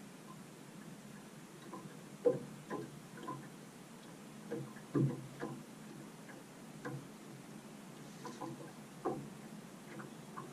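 Light, irregular knocks and ticks on a small fishing boat, about a dozen over several seconds, the sharpest about two and five seconds in, over a faint steady hiss.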